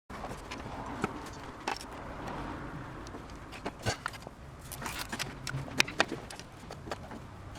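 Scattered light clicks and knocks over a steady background hiss: parts being handled while fitting work to a motorbike frame.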